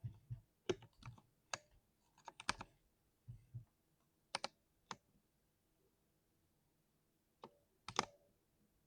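A 60% mechanical keyboard typed on in sparse, irregular keystrokes, each a short click with a deep thocky undertone; a pause of about two seconds before a last few keystrokes near the end.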